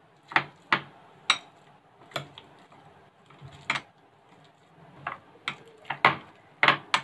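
Metal potato masher knocking against a glass bowl while mashing ripe bananas: about ten sharp, irregular clinks, coming closer together in the last couple of seconds.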